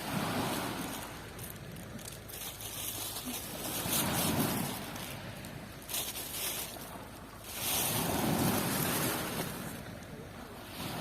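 Black Sea waves breaking on the shore, the surf swelling up and falling back three times, about every four seconds.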